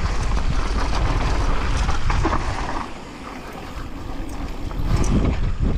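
Wind buffeting a helmet or body-mounted action camera's microphone while a mountain bike rolls down a dirt bike-park trail, its tyres rumbling over the ground. The rush eases about three seconds in and picks up again a second or so later.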